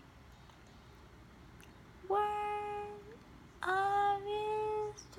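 A lone voice singing a slow hymn without accompaniment: a pause of about two seconds, then two long held notes, the second starting about three and a half seconds in.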